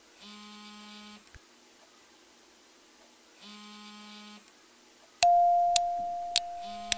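Electronic sound effects: two short buzzy beeps about three seconds apart, then a loud bell-like ding about five seconds in, with sharp ticks about every half second.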